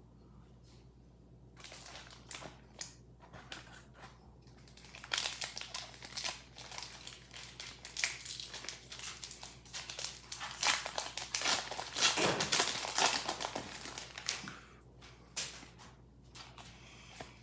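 Foil wrapper of a Pokémon trading-card booster pack crinkled and torn open by hand. A long run of crackling fills the middle, loudest about two-thirds of the way through, with lighter rustles and ticks of handling before and after.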